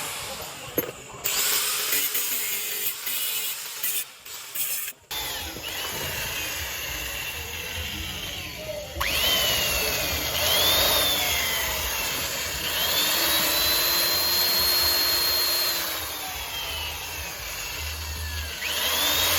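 Power drill boring out a broken 10 mm steel bolt with a 4 mm pilot bit, metal cutting on metal. It starts about a second in and breaks off briefly around four to five seconds. After that it runs steadily, with a whine that slides down and back up in pitch as the bit loads up.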